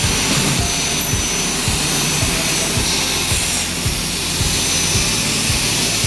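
CNC plasma torch cutting steel plate: the plasma arc gives a steady, loud hiss, with a low electrical hum underneath.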